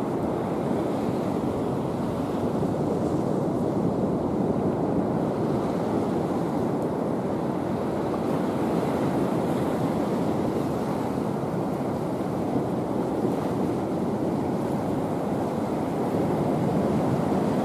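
Steady rush of ocean surf with some wind noise on the microphone.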